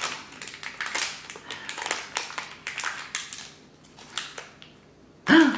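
Hands tearing open a small blind-box pin package: dense crinkling and crackling of the packaging that dies down after about three and a half seconds. A brief burst of voice comes just before the end.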